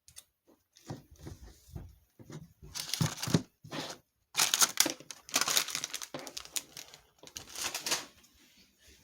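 A wrapper crinkled and torn by hand in several bursts, as when a surprise egg's wrapping is unwrapped; the loudest handling comes about halfway through.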